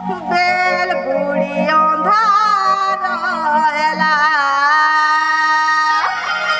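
A woman singing a Sambalpuri dand folk song in a high, ornamented voice with wavering pitch, holding one long note near the end. A low steady drone sounds under her and stops about four seconds in.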